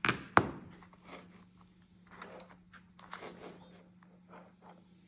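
Unboxing handling sounds: a sharp knock about half a second in, then scattered rustles and light taps as the phone and its packaging are handled, over a faint steady hum.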